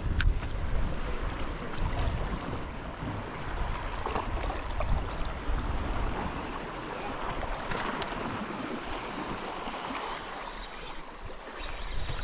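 Sea water washing against shoreline rocks, with gusty wind rumbling on the microphone; the wind rumble eases near the end.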